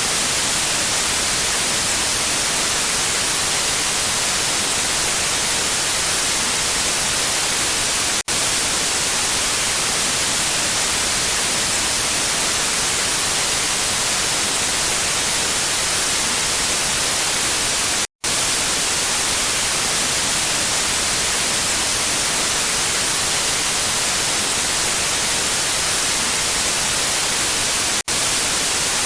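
Steady hiss of lost-signal radio/TV static, white noise strongest in the highs, cutting out for an instant about every ten seconds.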